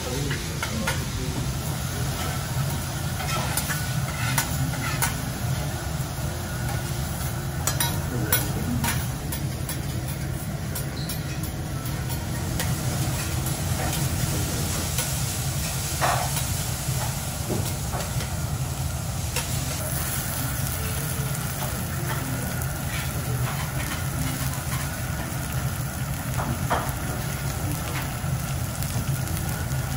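Food sizzling on a steel teppanyaki griddle over a steady low hum, with occasional sharp clicks of metal utensils.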